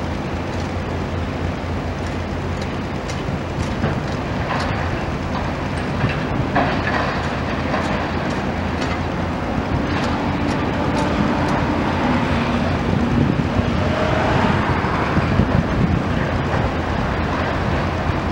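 Komatsu demolition excavator's diesel engine and hydraulics running steadily under load while its grapple tears at a building, with scattered cracks, crunches and scrapes of breaking debris that cluster around a third of the way in and again in the latter half.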